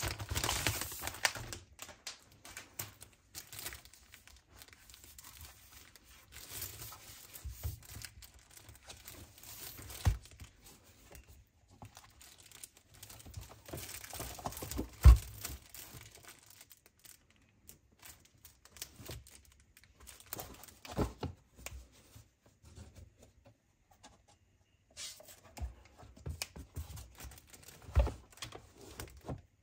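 Packaging torn open and crinkled by hand, in short spells with pauses, with scattered taps and a sharp knock about halfway through.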